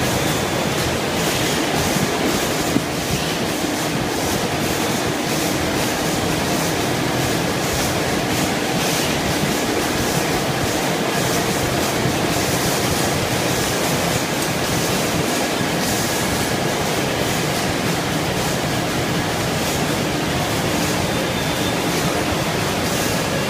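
Steady noise of textile factory machinery running in a large production hall, with faint steady hum tones and a fine clatter over it.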